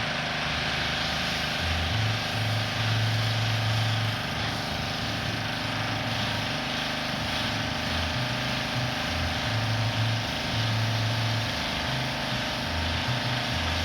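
Pressure washer running with the steady hiss of its water spray; the low drone of its motor jumps between two pitches every second or so.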